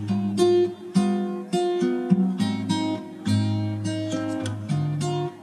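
Background music: acoustic guitar playing a run of plucked and strummed notes.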